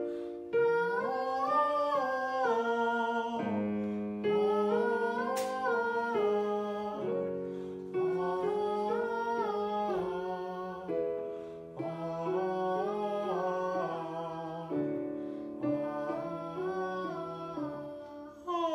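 A man singing a vocal warm-up on an open vowel, stepping up and down a short scale over held chords on a Casio digital keyboard. The phrase repeats about five times, the chord changing between repeats.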